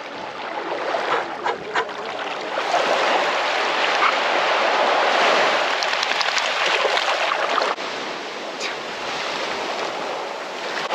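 Surf washing onto a beach: a steady rushing of waves that swells over the first few seconds and dips briefly about eight seconds in.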